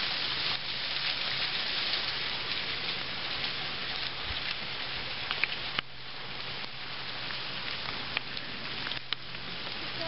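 Steady hiss of water falling and running at a mostly frozen waterfall, like rain on a surface, a little quieter after about six seconds.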